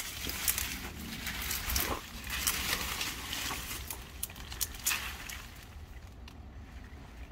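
Leafy cut roselle hibiscus stalks rustling and scraping as they are dragged over wood-chip mulch, with several sharp cracks and clicks of stems along the way. The rustling dies down near the end.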